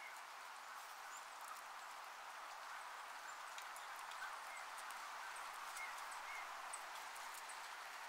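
Faint winter backyard ambience: a steady soft rushing hiss with a few short bird chirps and scattered faint high ticks.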